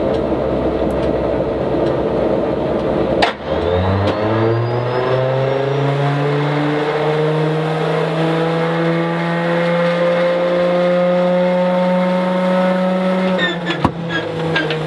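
Stinson L-1's inertia starter being wound up: after about three seconds of rushing noise, a whine rises in pitch and then holds steady for about ten seconds while the propeller stays still. Near the end the whine stops as the starter engages and turns the nine-cylinder Lycoming R-680 radial over, with a run of irregular clicks and pops. The engine will not catch, which the crew put down to timing being out, probably the cam off a tooth.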